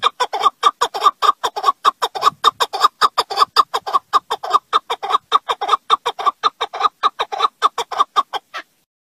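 Alectoris partridge calling, a rapid run of short, harsh chucking notes at about six a second, stopping abruptly near the end.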